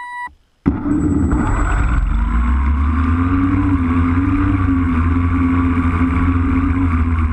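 V-tail quadcopter's electric motors and propellers running, heard through the GoPro mounted on the craft, with heavy wind rumble on the microphone. The motor hum wavers slightly in pitch and starts abruptly about half a second in.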